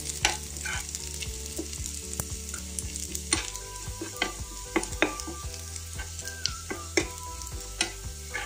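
Sliced shallots and curry leaves frying with mustard seeds in coconut oil, sizzling steadily as a spoon stirs them, with irregular clicks of the spoon against the pan. This is the tempering stage, with the shallots frying until they turn golden.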